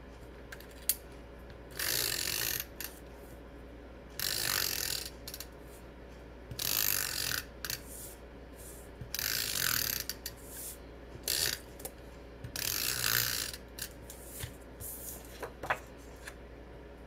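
Tape adhesive runner drawn along the edges of a paper card, clicking and zipping as it lays down adhesive in about six short strokes with small clicks in between.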